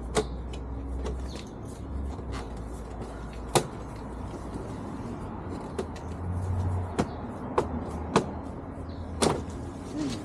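Sharp plastic clicks and knocks, about six spread over several seconds, from motorcycle body panels being handled and fitted back into place, over a steady low hum.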